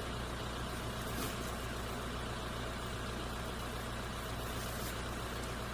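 A steady low mechanical hum that stays even, with no changes or distinct events.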